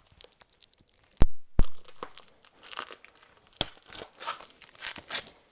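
Packing tape being peeled and torn by hand off a shipping tube: irregular crackling and ripping, with two sharp clicks a little after a second in.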